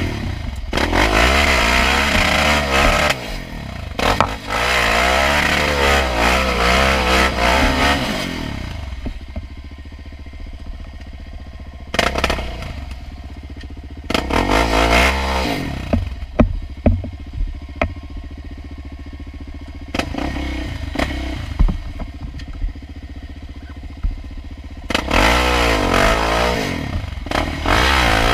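Sport quad ATV with an aftermarket exhaust, engine revving up and down on the throttle, then running quieter with short throttle blips, and revving again near the end. Sharp clatter and knocks from the machine going over the rough trail mix in.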